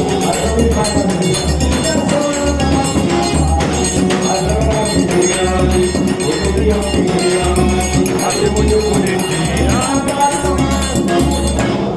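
Forró dance music with a singing voice, jingling percussion and a steady bass beat.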